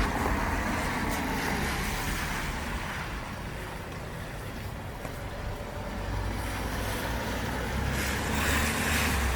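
Street traffic noise: a steady rumble of road vehicles, growing a little louder in the second half.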